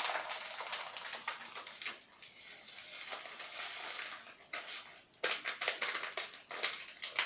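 Plastic packets of desiccated coconut crinkling as they are handled and shaken out over a bowl, in dense bursts of crackling with a softer stretch in the middle.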